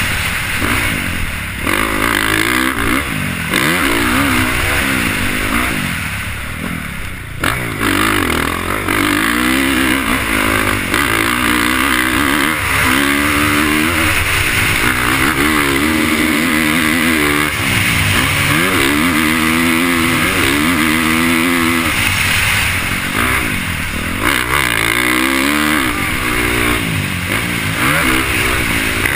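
Motocross bike engine being ridden hard, its pitch climbing and dropping over and over as the throttle opens and closes, heard from the rider's helmet camera. The throttle eases off briefly about six seconds in, then picks up again.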